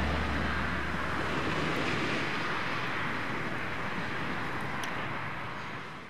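The end of a soundtrack fading out. A last low bass note dies away about a second in, leaving a steady hiss-like wash that fades to silence at the very end.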